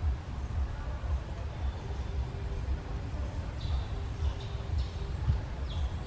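Steady low rumbling outdoor background noise, with a few faint short high chirps about four to six seconds in.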